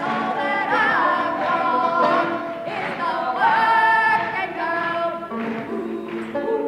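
Two women singing a song together at a microphone, their voices holding long notes.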